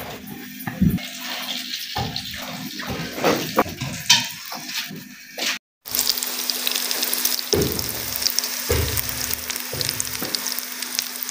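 Potato kababs dipped in egg, sizzling and crackling in ghee in a frying pan, which takes up the second half after a brief break. Before that, a plastic spatula clatters and knocks as fried kababs are set into a paper-lined container.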